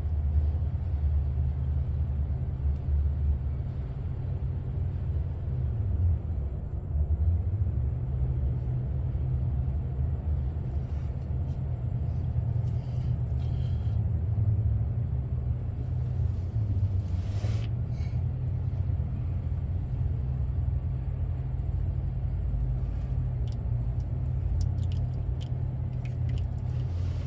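A steady low rumble, with a few light clicks and a short hiss about seventeen seconds in.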